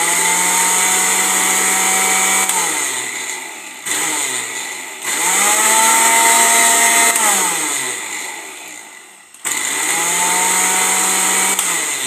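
Electric countertop blender motor running in three spells of a few seconds, each dropping in pitch as the motor winds down after being switched off. It is chopping carrots and peppers a second time because they were not yet finely ground.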